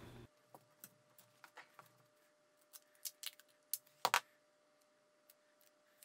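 Faint, scattered clicks and rustles of hands handling a thin power-adapter cable and tape while taping its leads to a stiffer fish wire, with a short, louder crackle about four seconds in.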